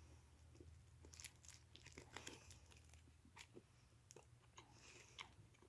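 Faint crunchy chewing of a chocolate bar with crisped cereal pieces in it (a Cocoa Pebbles bar): an irregular scatter of small crunches and clicks over a low steady hum.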